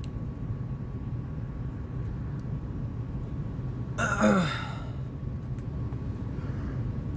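A man's sigh about four seconds in: one short breathy exhale falling in pitch. Under it is a steady low background rumble.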